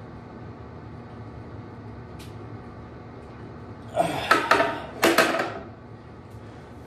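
Weight plates on an EZ curl bar clanking and ringing as the loaded bar is lowered and set down, several hits over about a second and a half starting about four seconds in.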